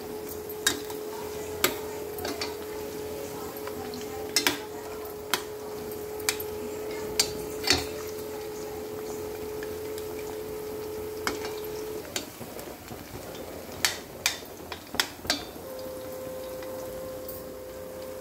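Chicken pakodi deep-frying in hot oil in a steel kadai: a steady sizzle, with a steel ladle clinking sharply against the pan at irregular moments, about fourteen times, as the pieces are stirred. A steady hum runs underneath, stops about two-thirds of the way through and comes back at a higher pitch near the end.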